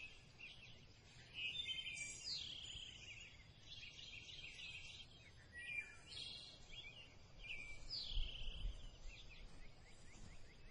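Faint bird song: short, high phrases, many falling in pitch, repeated every second or so.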